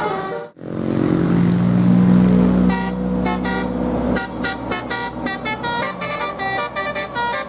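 A bus engine runs loudly for about two seconds after a sudden break near the start. Then a Basuri telolet horn, the multi-tone melodic horn of Indonesian buses, plays a fast tune of short stepped notes.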